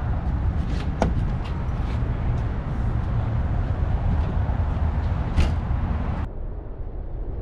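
Outdoor roadside ambience with a heavy, steady low rumble and a couple of sharp clicks, one about a second in and one past five seconds. A little after six seconds the sound turns abruptly duller and quieter.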